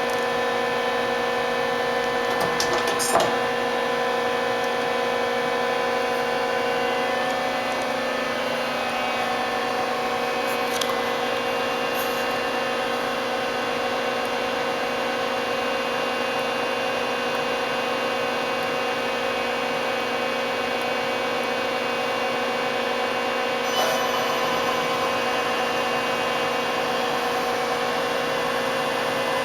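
Mori Seiki ZL-25A CNC turning center running: a steady machine whine made of several fixed tones, which shift slightly about eight seconds in. A few sharp clicks come through, about three seconds in, near eleven seconds and near twenty-four seconds.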